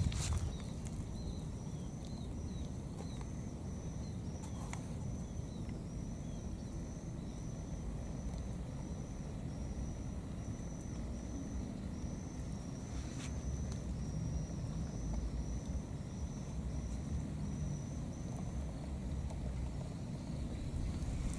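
Outdoor ambience: a steady low rumble under a high, thin chirp that repeats about twice a second and stops near the end, with a few faint clicks.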